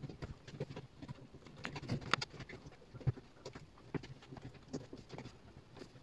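Irregular small clicks, taps and rubbing from hands working a washing machine's rubber door seal into place around the drum opening.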